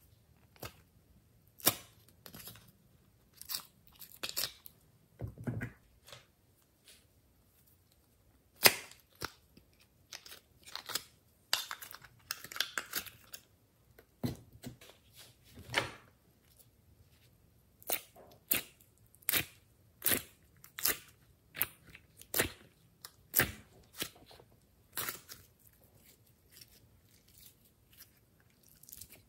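Glossy slime and soft clay being pressed, squeezed and pulled apart by hand: irregular sticky pops and crackles, single snaps a second or so apart with a few denser crackling stretches.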